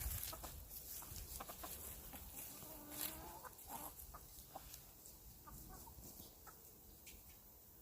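Chickens clucking softly with scattered short calls, and one longer wavering call about three seconds in.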